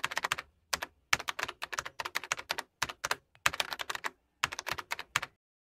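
Computer keyboard typing sound effect: quick runs of key clicks with short pauses between them, stopping abruptly about five seconds in.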